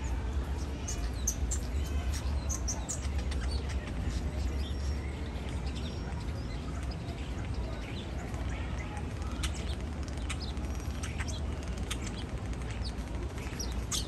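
European starling singing: a rambling run of short clicks, chirps and high squeaky whistles, over a steady low background rumble.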